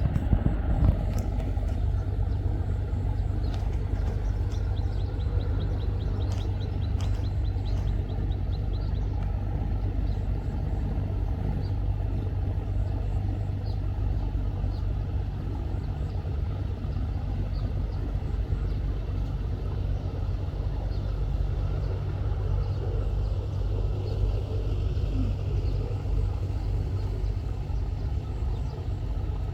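Steady low rumble of a boat's engine running at a constant pace, with a few sharp knocks in the first second.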